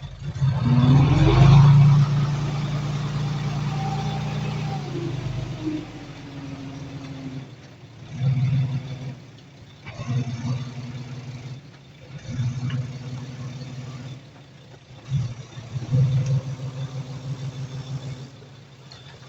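Heavy earthmoving machine's diesel engine revving up hard about a second in, then working in a series of shorter surges that rise and fall under load.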